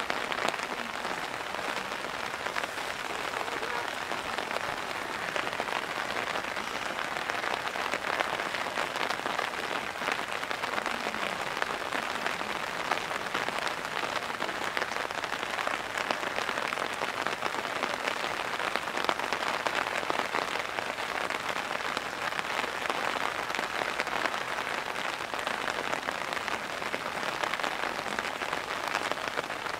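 Heavy downpour: rain falling steadily, a dense patter of drops on hard surfaces.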